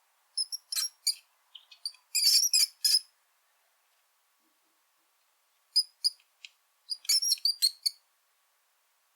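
Brown rat squeaking: short, high-pitched squeaks in two quick runs, one in the first three seconds and another about six seconds in, with a pause between.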